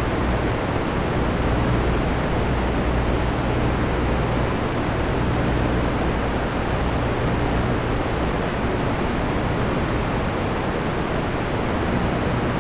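Steady, even hiss of static with a faint low hum, the noise audio track of an analog FPV video receiver's recording; it does not change as the quadcopter climbs and flips.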